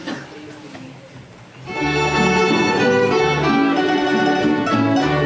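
Violins with a folk string band begin playing a tune about a second and a half in.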